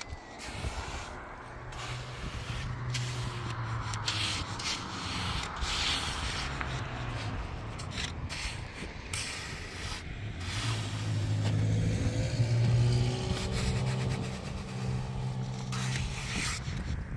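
A steel trowel scraping and rubbing across wet concrete as it is spread and smoothed. A low engine hum comes in twice, loudest about three quarters of the way through.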